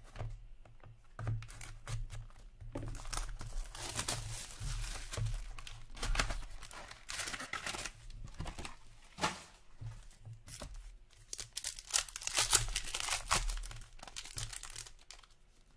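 Hockey card packs being torn open by hand: plastic wrappers tearing and crinkling in irregular bursts, with the rustle of the box and packs being handled.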